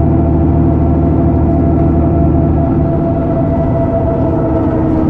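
Mercedes-Benz Citaro G articulated city bus's diesel engine and ZF 6HP 502C automatic gearbox running steadily under way, a steady hum of several tones; the deepest part of the note weakens about halfway through.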